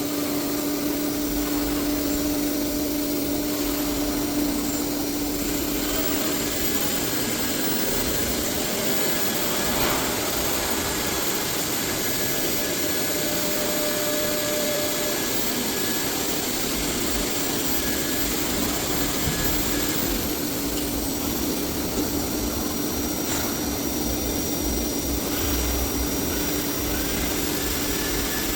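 A 1325 ATC CNC router running: steady, loud machine noise with a constant humming tone that weakens about five seconds in and comes back near twenty seconds.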